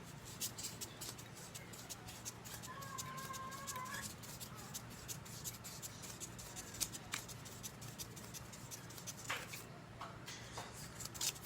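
Light clicks and taps of small metal parts and tools being handled while working on the stand fan's motor bushings. About three seconds in there is a brief steady squeak.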